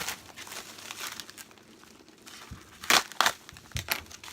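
A shipping package crinkling and crackling as it is handled and opened, with the loudest rustles about three seconds in.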